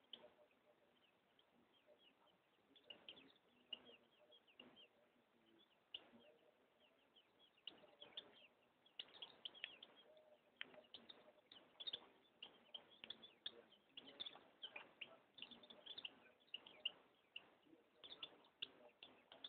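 Pleci (white-eye) songbird singing faintly: a rapid run of short, high chirps and twitters, sparse at first and much busier from about halfway.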